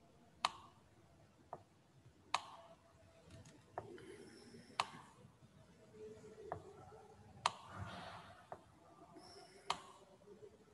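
Light, sharp clicks, about nine at irregular intervals, as grid lines are drawn by hand on a digital whiteboard, with faint scratching between some of them.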